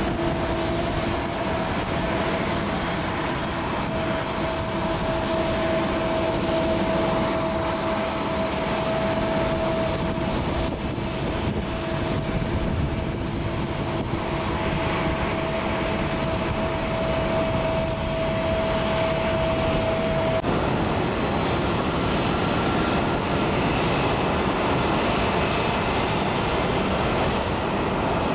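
Jet airliner engines running: a steady broad rush with a held whine. About twenty seconds in the sound changes abruptly to a different steady engine rush without the whine.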